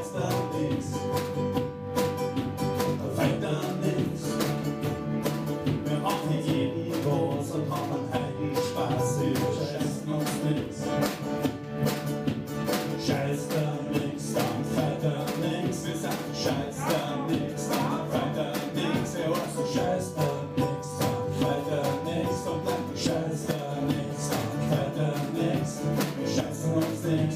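Instrumental music led by plucked strings, guitar-like, playing continuously.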